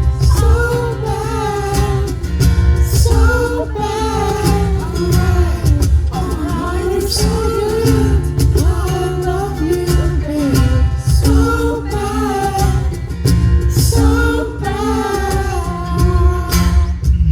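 Live band performing a song: a sung lead vocal over drums, bass and guitar, with a heavy steady beat.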